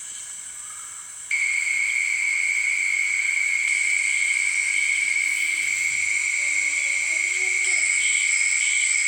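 Insects chirring outdoors in a steady, high-pitched drone that cuts in abruptly a little over a second in.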